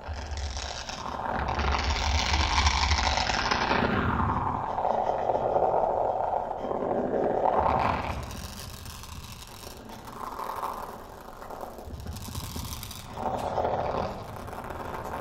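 Amplified kalimba with live electronic processing making noisy, unpitched scraping textures rather than plucked notes. The sound swells loud for the first half, then falls back to quieter scrapes with two brief swells near the end.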